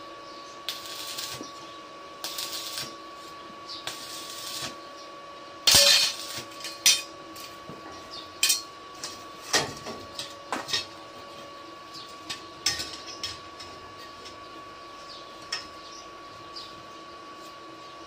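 Arc welding on a steel pipe fence: the arc crackles and hisses in three short bursts in the first five seconds. About six seconds in comes a loud metal clank, followed by scattered sharp taps and clinks of metal on steel.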